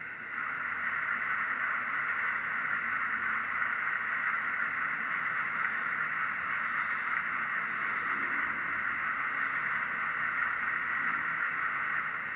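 The factory-fitted DCC sound decoder in a Bachmann GWR 94XX pannier tank model playing its water-tank-filling effect through the model's small speaker: a steady rush of water pouring into the tank.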